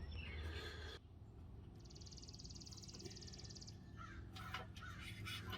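Crow cawing faintly, with a steady high buzzing trill lasting about two seconds in the middle.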